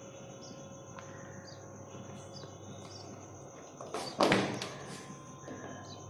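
Steady high-pitched trilling of crickets, with a few faint bird chirps. A single loud knock about four seconds in.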